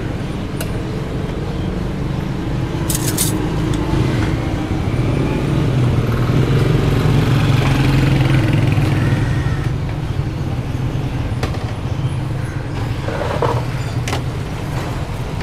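Road traffic running steadily, with a motor vehicle passing close and growing louder around the middle before fading again. A few sharp clicks sound over it.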